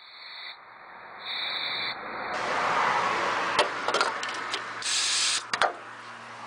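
Aerosol can of penetrating lubricant hissing in sprays onto rusty exhaust studs and bolts, with a few sharp clicks from the can and nozzle. The spraying starts about a second in, is strongest near the five-second mark, and stops shortly before the end.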